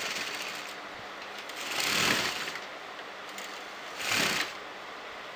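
Electric sewing machine stitching in two short runs, about two seconds in and again about four seconds in, the stitching along a lace seam.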